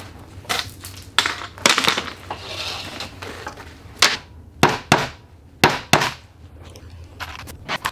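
Hammer tapping finish nails into a white oak board, heard as sharp knocks, several in quick pairs. Between the knocks there is scraping and rustling as the board and tools are handled.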